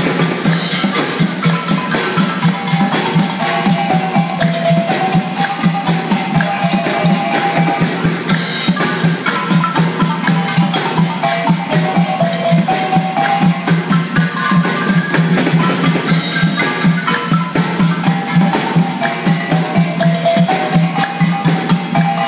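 Traditional Malaysian percussion ensemble of tuned mallet instruments playing a fast, steady rhythm, with a melody weaving over a repeated low note.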